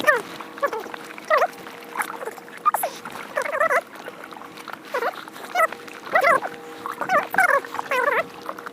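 An animal's short, high-pitched whining cries, repeated throughout, sometimes several in quick succession.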